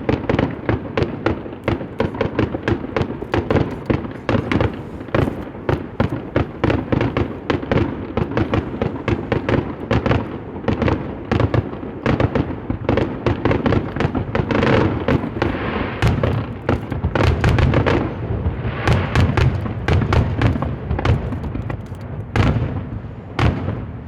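Fireworks display: a rapid, continuous barrage of shell bursts, many booms a second without a break, with stretches of crackling.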